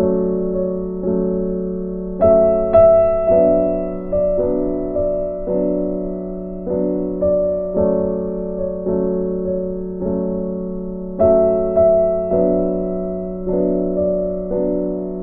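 Background music: a slow keyboard melody, its notes struck about once a second and each fading away, over a steady low held tone.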